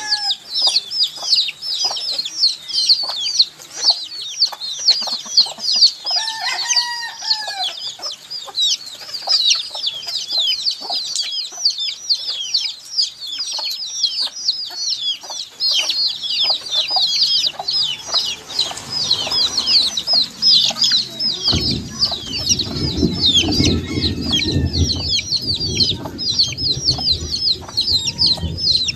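A brood of baby chicks peeping continuously: many overlapping high-pitched chirps. A single lower, arched call sounds about six seconds in. From about two-thirds of the way through, a low rumbling noise runs underneath.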